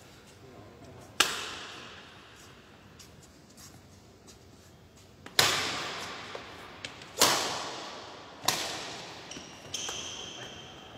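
Badminton rackets striking a shuttlecock in a rally: four sharp cracks, each ringing out in the echo of a large hall, with a few fainter hits between.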